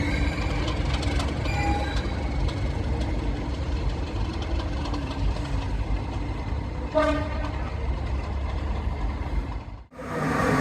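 Heritage train running on the rails with a steady low rumble and light clicking. A brief pitched tone, horn- or whistle-like, sounds about seven seconds in, and the sound stops abruptly near the end.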